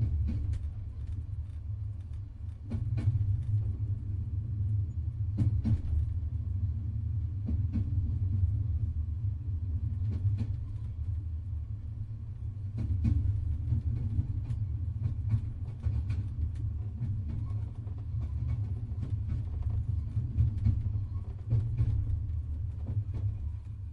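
Train running on the rails: a steady low rumble with scattered clicks and knocks.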